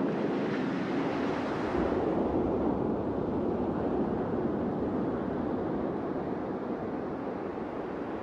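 Ocean swell and surf: a steady rushing wash of water that eases slightly toward the end.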